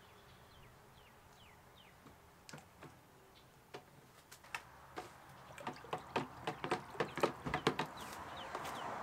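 Irregular sharp knocks and rattles of a paint-mixer paddle shaft against a plastic bucket as the paddle is rinsed in water, sparse at first and coming thick and fast in the last few seconds, with water swishing near the end. A few faint high chirps sound early on.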